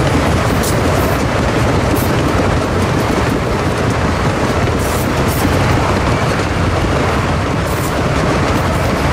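Loaded sugar cane bins of a narrow-gauge cane train rolling past: a loud, steady rumble of steel wheels on the rails.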